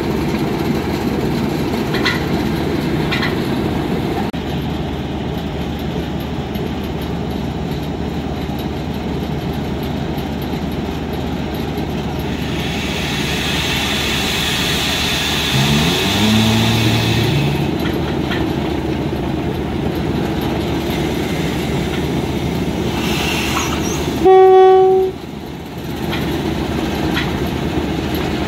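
Class 08-type diesel shunter's engine running steadily, with a hiss in the middle and the engine note rising briefly. Near the end comes one short, loud horn blast.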